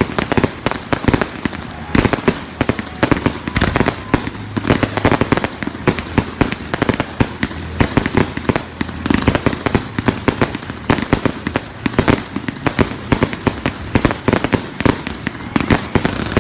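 Fireworks going off in a dense, unbroken barrage of many bangs and crackles a second.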